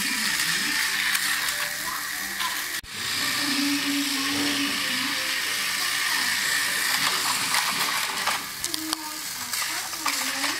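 Battery-powered toy train running on plastic track: a steady whirring gear motor with rattling wheels and clicks. The sound briefly breaks off about three seconds in.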